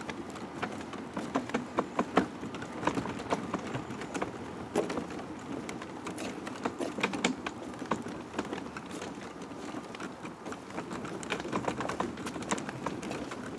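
Graco stroller rolling over a wooden boardwalk: irregular knocks and clicks, several a second, as the wheels cross the gaps between the planks, over a steady rolling rumble.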